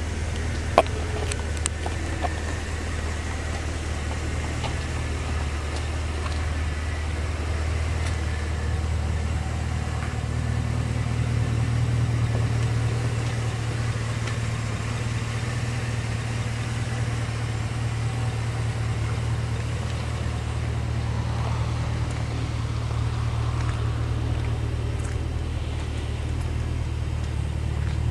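2008 Pontiac G8 GT's 6.0-litre L76 V8 idling steadily through a Magnaflow cat-back exhaust with a low, even tone and no revving. A single sharp click comes about a second in.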